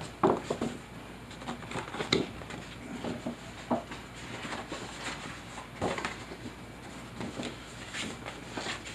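Large glossy paper poster rustling and crackling irregularly as it is handled and folded back up.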